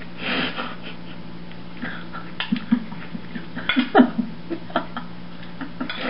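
A person chewing and eating, with scattered wet mouth noises and small clicks, and a sharper burst about four seconds in, over a steady low hum.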